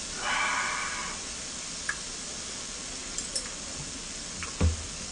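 Hanwoo beef and shiitake mushrooms sizzling on a tabletop grill pan: a steady frying hiss, with a few small clicks of chopsticks on dishes and a sharp knock near the end.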